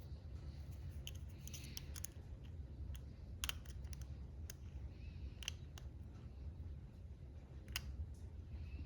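Lock pick working the pins inside a Chateau lock: scattered light metallic clicks, a handful of them sharper, over a low steady hum.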